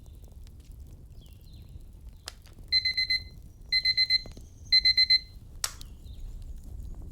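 Digital alarm beeping in three bursts of about four quick beeps each: the pomodoro timer signalling the end of an interval. A fire crackles with occasional pops underneath.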